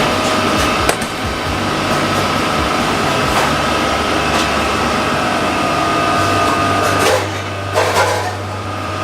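Steady whir of ventilation machinery, a constant rush of air with a fixed hum running through it. A few brief clicks stand out from it, one about a second in and a couple near the end.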